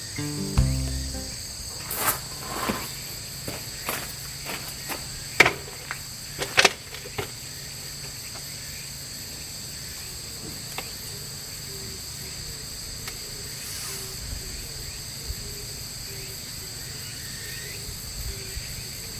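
Outdoor insect chorus, a steady high-pitched chirring, with a handful of sharp knocks in the first several seconds.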